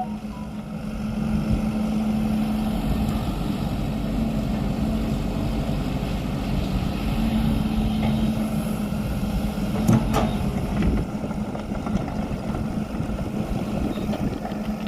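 An engine running steadily with a low drone, and a single sharp knock about ten seconds in.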